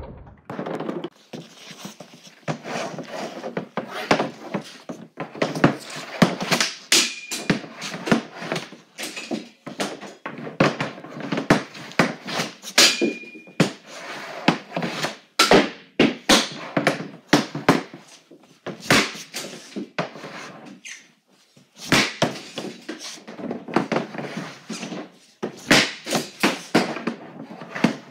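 Rapid hockey shooting with a Bauer Nexus Geo stick on plastic shooting tiles: dozens of sharp slaps and clacks as the blade strikes the tiles and pucks, and pucks thud into the net and plywood backboard. Twice a short ringing tone stands out among the hits.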